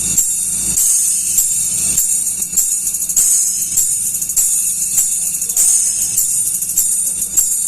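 Treble check of the Mawar Audio sound system: a test track of bright, jingling, tambourine-like percussion played loud through the rig, in quick rhythmic strokes, with little bass.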